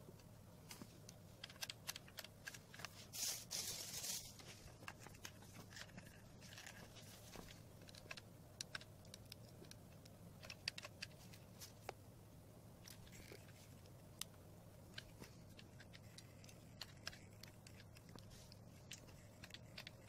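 Faint, scattered clicks and crackles from a hot glue gun being worked by a gloved hand, with a denser patch of crackling about three seconds in, over a low steady hum.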